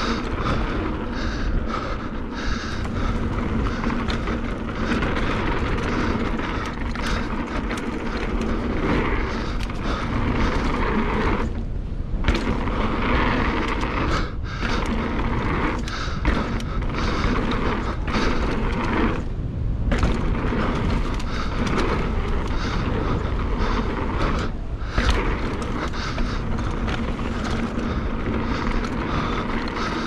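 Mountain bike descending a rough downhill trail: wind rushing over a helmet chin-mounted camera's microphone, with tyre noise and the bike's rattles and knocks over the bumps.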